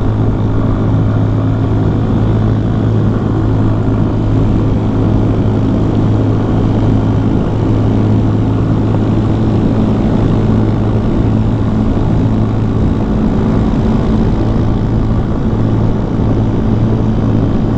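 CFMoto Papio XO-1 minibike's small single-cylinder four-stroke engine running at a steady cruise, with a steady rush of wind and road noise while riding.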